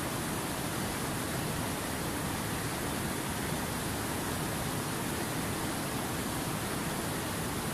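Mountain river rushing over boulders: a steady, even rush of water.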